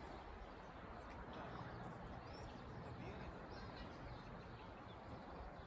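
Faint open-air ambience: a steady low rumble, with a few faint bird chirps.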